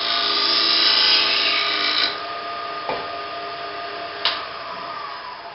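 Wood lathe spinning a bowl blank while a bowl gouge cuts the wood, a loud scraping hiss over the steady motor whine for about the first two seconds. Then a click, and the motor tone falls away as the lathe winds down.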